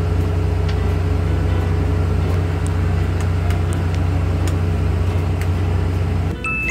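Boat engine running steadily under way, a loud low drone that cuts off abruptly near the end.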